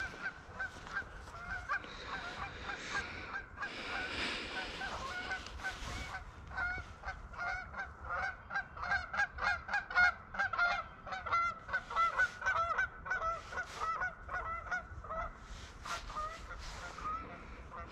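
Birds calling: a long run of short repeated calls, coming thick and fast in the middle and thinning out near the end.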